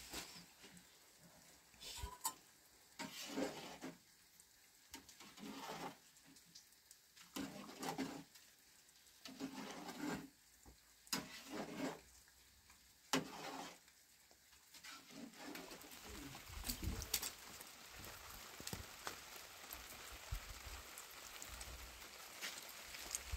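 Heavy rain falling: a steady hiss that builds up over the second half, with low thumps near the end. It follows a run of short, soft separate sounds every second or two.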